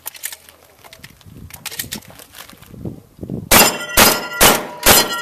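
Benelli shotgun: a few quiet handling clicks, then from about three and a half seconds in, four shots in quick succession, a bit under half a second apart. Steel targets ring after each shot.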